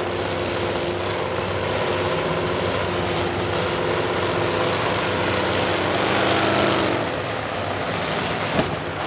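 Engines of several pickup trucks running together at a steady pitch over a broad rushing noise. The engine tones fade about seven seconds in.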